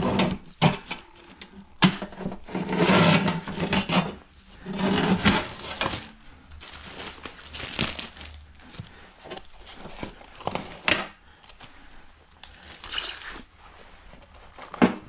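Plastic wrapping and packing material crinkling and rustling in uneven bursts as wood stove parts are pulled out of their bags, with a few sharp knocks as the parts are handled.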